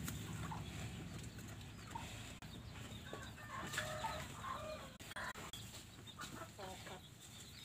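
Chickens clucking faintly, a scattering of short calls.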